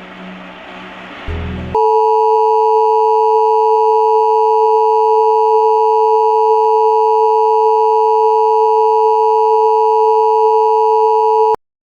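A short hiss, then the Emergency Alert System attention signal: a loud, steady two-tone electronic tone that holds unchanged for about ten seconds and cuts off abruptly near the end.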